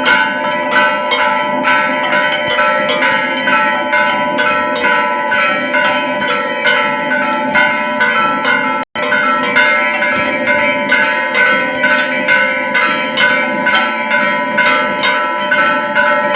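Temple bells clanging continuously, many overlapping strikes a second with their tones ringing on. The sound drops out for a moment about nine seconds in.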